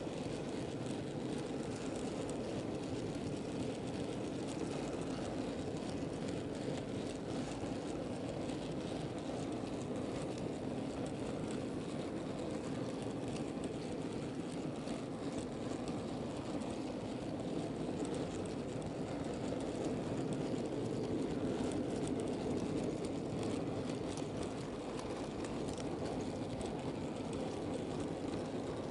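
Model goods train running along the layout track: a steady rolling rumble of wheels on rails heard from on board the moving train, with faint scattered ticks.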